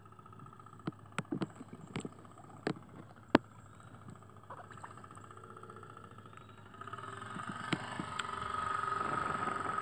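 Small homemade model steam boat's boiler and steam engine running with a steady hiss and a thin whistle-like tone, with several sharp clicks in the first few seconds. The hiss swells louder over the last few seconds as the boat comes close.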